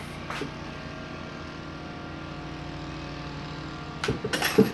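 A steady low hum, then, about four seconds in, sharp metallic snaps as bolt cutters bite through the handle of a bent metal spoon.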